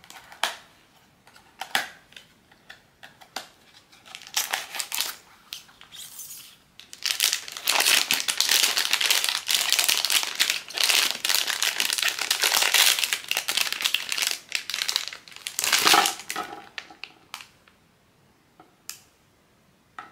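Blind box packaging crinkling as it is unwrapped by hand: scattered crackles at first, then a dense run of crinkling from about seven seconds in to about sixteen, tapering off to a few last crackles.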